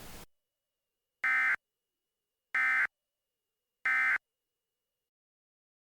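Emergency Alert System end-of-message code: three short, identical buzzy bursts of SAME digital data tones, each about a third of a second long and about 1.3 s apart, signalling that the warning message has ended. A background hiss cuts off just before the bursts.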